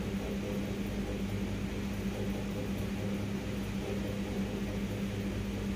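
Ceiling fan running: a steady electric hum under a constant wash of air noise.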